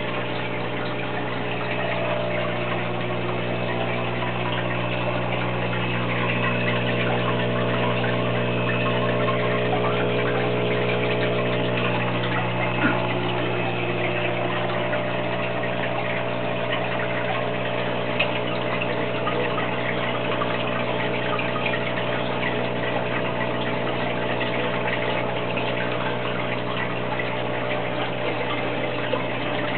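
Aquarium pump running steadily with a low electrical hum, over the busy bubbling and trickling of water from the tank's sponge filter. Two brief ticks stand out, about midway and a few seconds later.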